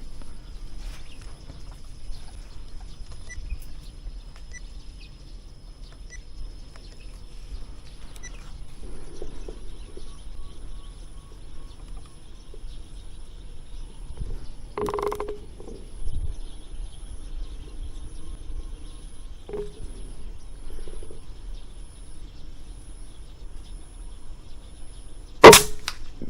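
Wind rumbling on the microphone, with faint bird calls, then near the end a single sharp shot from a suppressed PCP air rifle (Humer X Tactical with a Greyhound silencer).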